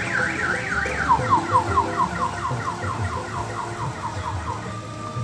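Electronic siren: a fast up-and-down warble that about a second in switches to rapid falling chirps, about five a second, fading out near the end, over a low engine rumble from the small tour train.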